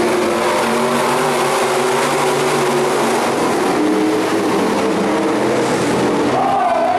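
A pack of V8 sport modified dirt-track race cars running at speed, several engine notes at different pitches overlapping and shifting as the cars go through the turn and down the straight.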